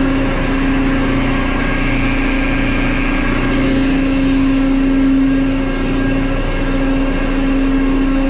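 Tanker ship's machinery running: a loud, steady drone with a strong constant hum that does not change.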